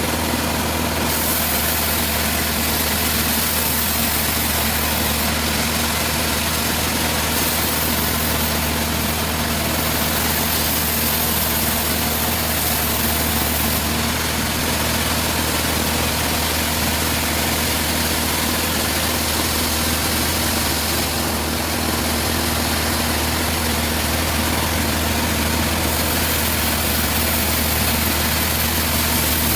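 Sawmill machinery running steadily: a constant low engine hum, with a high hiss over it that grows louder and fades back every few seconds.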